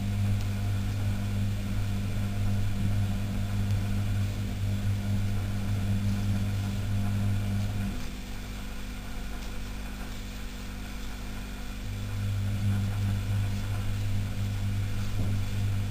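A steady low droning hum. It fades back for about four seconds roughly halfway through, then returns.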